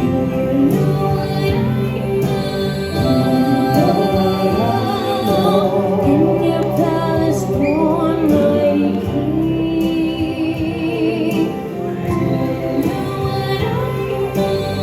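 A Christmas song sung by voices over accompaniment, with long held notes sung with vibrato.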